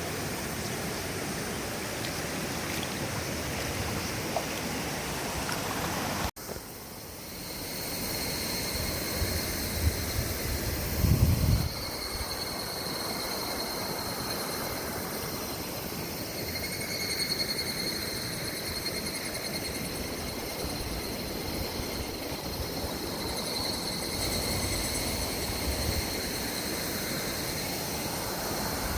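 River water rushing steadily over a rocky bed. About six seconds in the sound cuts to a new take, where a steady high-pitched whine joins the water, and a brief low rumble comes around ten to eleven seconds in.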